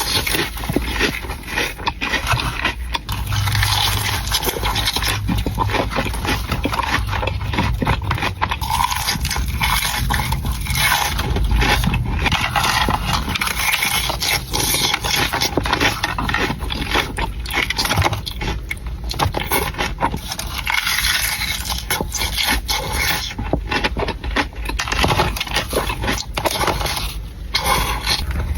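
Close-miked chewing and crunching of a breaded mozzarella stick: continuous crackling with many quick sharp clicks, without a break.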